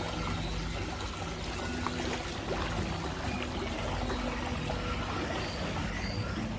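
Water rushing and churning in a narrow concrete ride channel as the boat moves along it, a steady wash with a faint low hum underneath.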